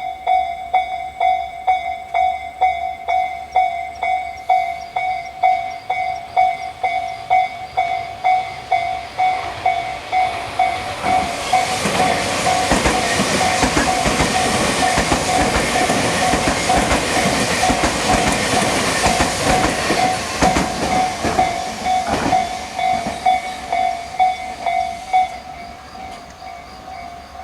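Japanese level-crossing warning bell of the Tobu 'sound C' (Tojo Line) type, ringing in an even repeating electronic ding about one and a half times a second. About eleven seconds in, a Tobu 500 series Revaty electric train runs over the crossing with a loud rush of wheels and motors that lasts about fourteen seconds. The bell keeps ringing after the train has gone.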